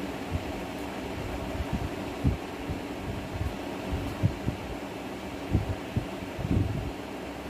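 Steady mechanical hum, like a fan or small motor running, with irregular soft low thumps scattered through, several of them close together near the end.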